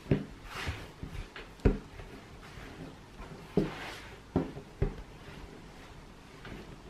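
Pasta dough being kneaded by hand on a wooden tabletop: a few dull, irregular thumps as the ball is pressed and turned against the wood, with soft rubbing and rustling between them.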